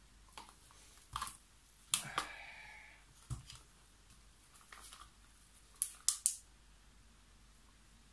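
Plastic paint cups and wooden stir sticks being handled: a scattering of short taps and clicks as cups are set down and sticks knock against them, one tap about two seconds in leaving a brief ring, and a quick cluster of three near the end.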